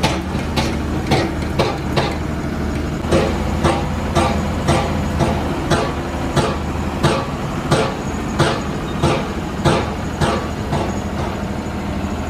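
Repeated strikes on metal at a steady pace of about two a second, typical of hammering in a workshop, over the low steady hum of an engine running.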